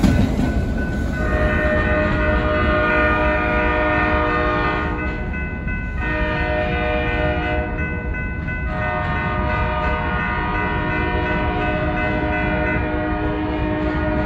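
Diesel freight locomotive air horn sounding a long sequence of blasts with two brief breaks, starting about a second in, over the steady rumble of the freight train rolling past on the rails.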